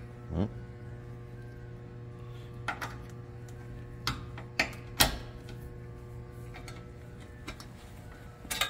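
Scattered metal clicks and knocks as a gas door shock's ends are snapped onto their mounting studs on a UTV door, the loudest about five seconds in, with a short rising squeak just after the start. A steady low hum runs underneath.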